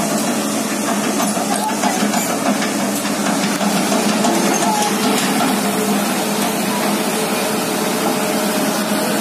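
Boat engine running steadily with a low hum, under a constant hiss of wind and water.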